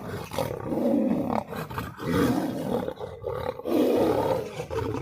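A lion and a tiger fighting, roaring about three times in long, rough roars.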